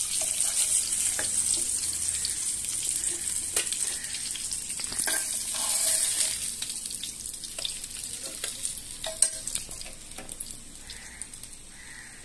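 Semolina-coated mackerel sizzling in hot oil in a frying pan, with a few sharp clicks scattered through it. The sizzle fades gradually.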